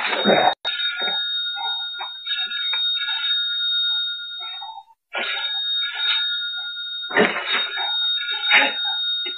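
A steady, high electronic ringing tone, like an alarm, sounds on and off with a short break a little before halfway. Irregular cries and yelps from the struggle between the man and the wild boar come through over it.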